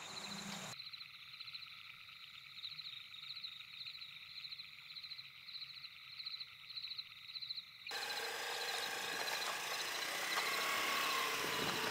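Crickets chirping in a steady pulsing rhythm. About eight seconds in, a broad rushing noise from a Honda motor scooter riding off takes over and grows louder.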